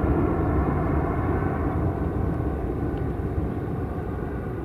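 Twin-engine jet airliner flying away, its engines a steady rumble that fades gradually.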